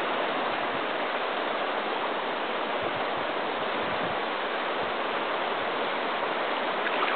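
Steady rush of moving water, an even hiss with no distinct splashes.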